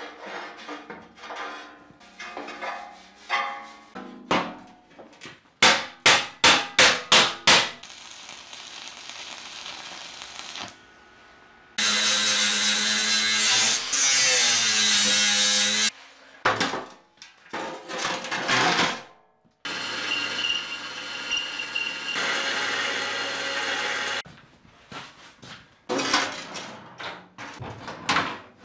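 Metalworking on a sheet-steel seat box. Irregular tapping and scraping, then a quick run of about six loud strikes. After that an angle grinder grinds the steel for several seconds, its pitch dipping under load; a further stretch of steady tool noise follows, then knocks and clatter as a steel panel is handled.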